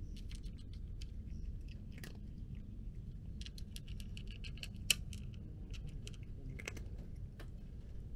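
Tabby cat crunching dry kibble: a run of irregular crisp crunches, one sharper crack about five seconds in, over a low steady background rumble.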